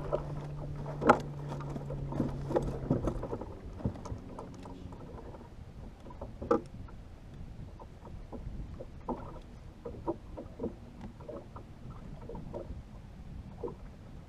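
Scattered knocks and clatter on a fibreglass bass boat as a netted fish is lifted aboard and handled, with water lapping against the hull. A low steady hum stops about three seconds in.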